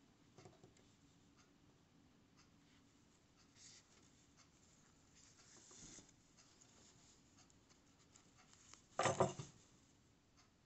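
Faint rustling of yarn and a crocheted piece being handled while whip-stitching with a yarn needle, with small ticks as the needle goes through the stitches. A rustle builds as the yarn tail is drawn through, up to about six seconds in, and a louder brief rustle comes about nine seconds in.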